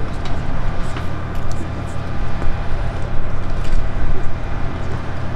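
Piper PA-28R-201 Arrow's four-cylinder piston engine running with a steady low drone as the aircraft rolls along the runway, heard from a distance.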